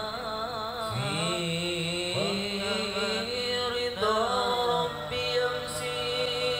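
A sholawat, an Arabic devotional chant praising the Prophet, sung with a wavering, ornamented melody over a steady held accompaniment.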